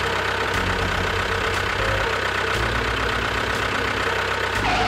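Tractor engine running steadily with an even low pulse while the mini tractor hauls a sand-loaded trolley.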